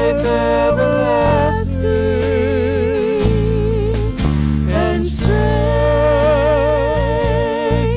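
Church praise band playing a worship song: voices singing long held notes with wide vibrato over strummed acoustic guitar and electric bass, the singing pausing briefly about halfway through.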